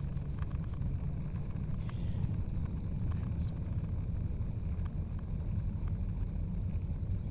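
Skateboard wheels rolling over pavement: a steady low rumble with scattered small ticks.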